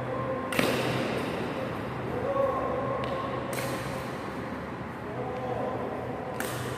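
Badminton racket striking a shuttlecock three times, about three seconds apart: short, sharp hits over a steady low hum.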